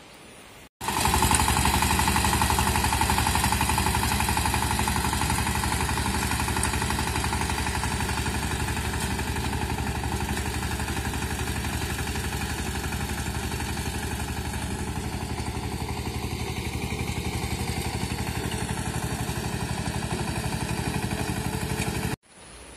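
Walk-behind power tiller's engine running steadily with a fast, even chug as it ploughs a flooded, muddy paddy field. It starts abruptly about a second in and cuts off abruptly near the end.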